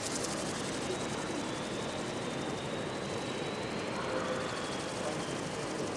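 A radio-controlled model aircraft's motor running steadily, with a faint high whine that wavers slightly in pitch.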